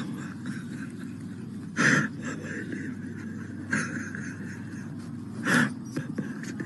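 Short, strained breath or voice sounds from a frail elderly man on a nasal oxygen cannula. There are three of them, about two seconds apart, over a steady low hum.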